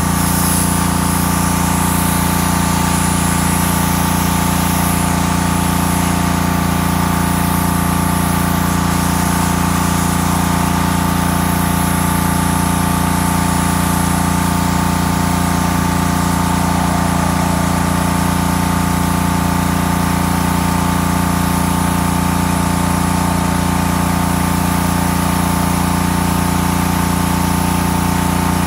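Honda single-cylinder four-stroke engine of a gas pressure washer running steadily at a constant speed, with an even, rapid pulsing beat.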